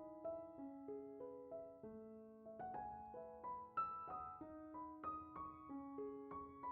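Soft background piano music: a slow melody of single held notes.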